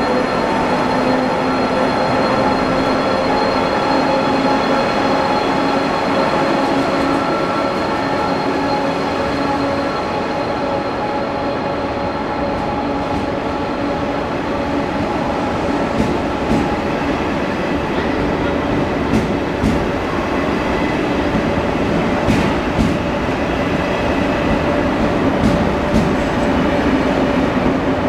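Passenger train at a station platform, running with a steady rumble and several held machine tones. Scattered sharp clicks come in from about halfway.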